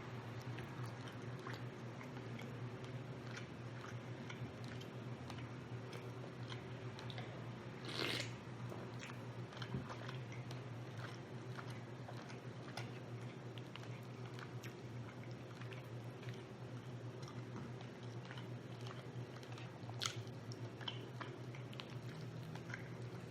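Close-up chewing and biting of rotisserie chicken, with many small wet mouth clicks over a steady low hum. A louder brief burst comes about eight seconds in and a sharp click near the twenty-second mark.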